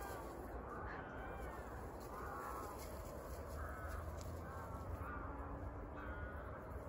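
Birds calling in a series of short calls, about one a second, over a steady low rumble.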